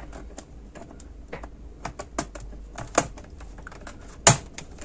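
Plastic clicks and creaks from a Dell Inspiron N5110 laptop keyboard being pried out of its retaining slots in the frame, with a louder click about three seconds in and a sharp snap near the end. The keyboard is, as he puts it, probably just stuck in place.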